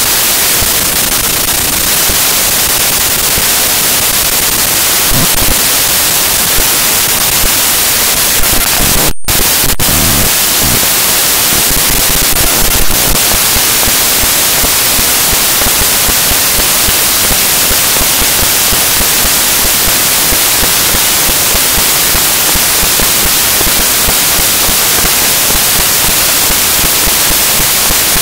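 Loud, steady static hiss filling the audio track, with a few faint crackles and a split-second dropout about nine seconds in.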